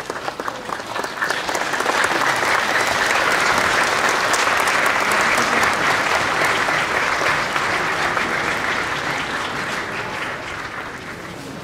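Audience applauding in a theatre hall, swelling over the first two seconds, holding steady, then slowly dying away.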